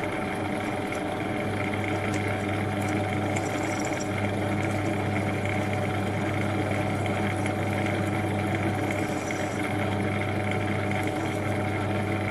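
Metal lathe running steadily with an even hum, its four-jaw chuck spinning as an M35 cobalt twist drill bores into a plate of very hard steel. The drill cuts easily, with no strain on the lathe.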